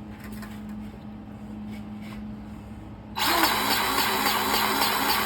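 Battery-powered grease gun motor running, starting about three seconds in, pumping grease into the grease nipple on the top half of a skid steer's hydraulic cylinder.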